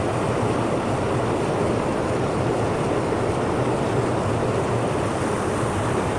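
Mountain creek water rushing steadily over rocks, a constant even noise with no change.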